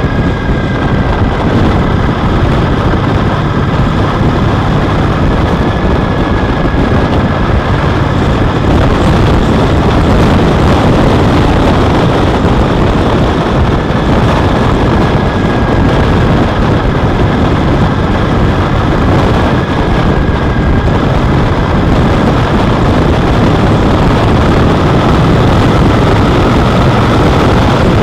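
Triumph Speedmaster parallel-twin motorcycle riding at road speed, its engine running under heavy wind rush on the bike-mounted camera's microphone. The noise is steady and gets a little louder about nine seconds in.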